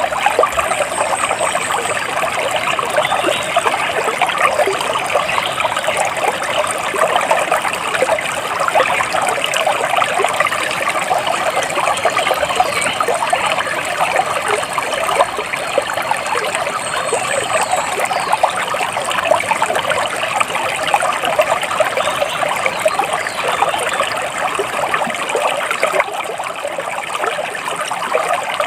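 Water trickling and splashing steadily, like a small stream over stones, with a few faint high bird chirps.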